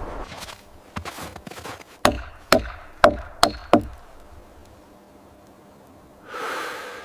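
Wood being struck by hand: a few light knocks, then five sharp blows about half a second apart, typical of chopping or hammering in bushcraft camp work. A brief rushing noise comes near the end.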